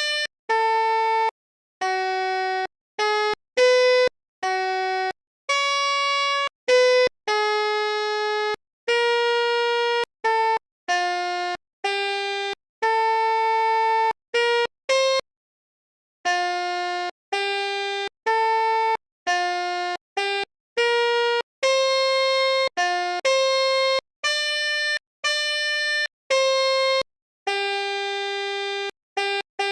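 Basuri multi-tone 'telolet' bus horn playing a melody: a string of short held notes of clear, changing pitch, roughly one a second with brief silences between them and a pause of about a second halfway through.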